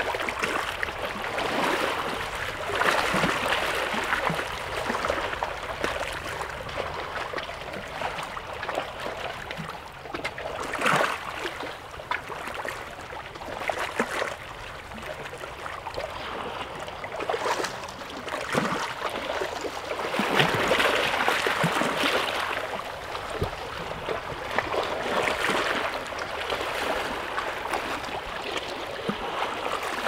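Small waves of the Caspian Sea washing at the shore, a steady rush of water that swells louder every several seconds, with occasional sharper splashes.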